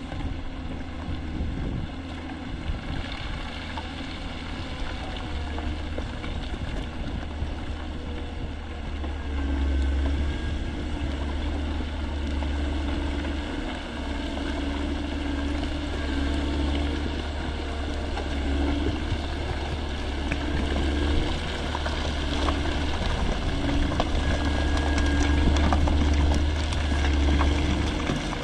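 Caterpillar 140M motor grader's diesel engine running as the machine works, a steady drone with a deep rumble that grows louder and eases off several times.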